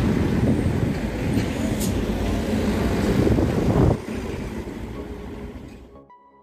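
Road traffic passing close by, with a minivan's engine and tyre noise. About four seconds in, the sound drops suddenly to quieter street traffic, which fades away.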